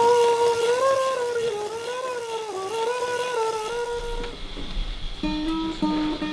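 A steady hum that gently rises and dips in pitch stops about four seconds in. About a second later, single notes plucked on a nylon-string classical guitar begin.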